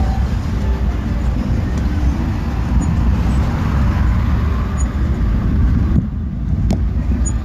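Street traffic noise with a steady low rumble, heard while riding along a city street; it eases about six seconds in, with a single click shortly after.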